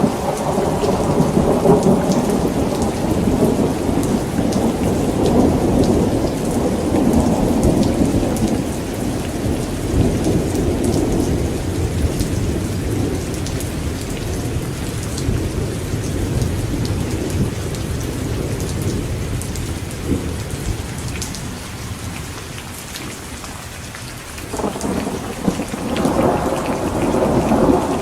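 Steady rain with rolling thunder. The low rumble dies away through the middle and swells again suddenly near the end.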